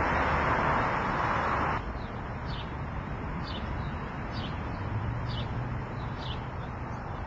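Loud steady street noise that cuts off abruptly about two seconds in. Then a small bird chirping, a short falling note about once a second, over quiet outdoor background.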